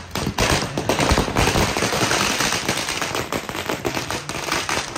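Firecrackers going off in a fast, dense run of bangs and crackles that thins out near the end.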